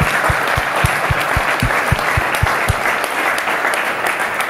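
Audience and panel applauding. One nearby pair of hands claps steadily, about four claps a second, stands out over the rest and stops a little under three seconds in.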